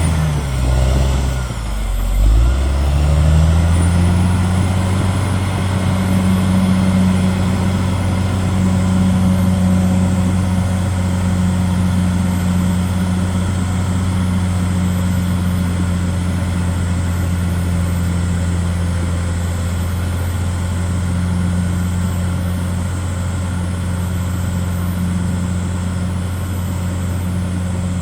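CAT D6R XL bulldozer's diesel engine running under load with a steady deep drone. In the first couple of seconds the engine note sags briefly, then climbs back and holds.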